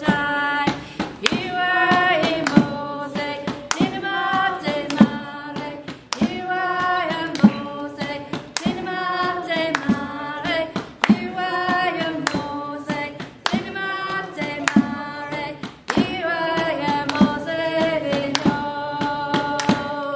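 Church congregation singing a worship song unaccompanied, with a sharp percussive beat struck about once a second.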